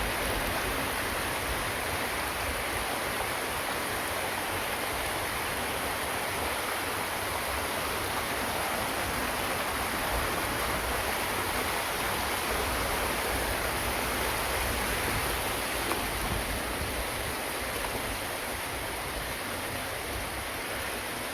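A waterfall's steady rush of falling water, even and unbroken, easing slightly near the end.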